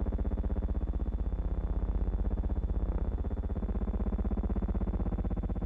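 Steady low buzzing hum with a rapid, even flutter and a faint high whine above it, with no speech. It is the steady noise of the archival film's soundtrack, not the soldiers or the unloading on screen.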